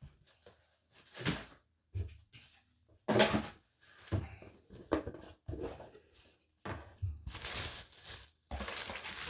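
Paper packaging being handled: short, irregular rustles and crinkles, with a longer stretch of rustling in the last two seconds.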